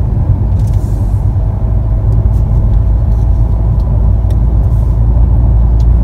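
Road and engine noise inside a moving car's cabin: a loud, steady low rumble.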